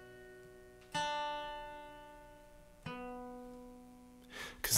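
Acoustic guitar music from a song: the guitar is struck twice, about one and three seconds in, and each time left to ring out and fade.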